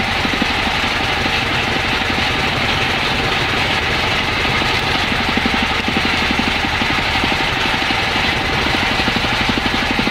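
A boat's engine running steadily with a fast, even throb while the boat trolls, over the rush of the wake and wind.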